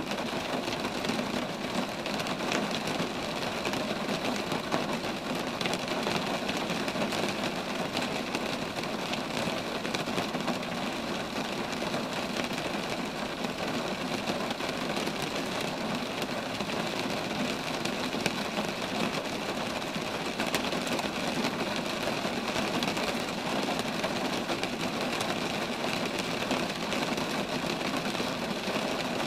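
Steady rain falling on roadside trees, a constant hiss of water with many small drop impacts.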